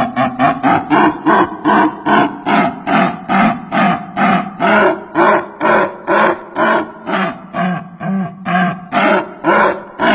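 A bird calling in a long, even series of short, buzzy-pitched notes, about three to four a second and slowing slightly.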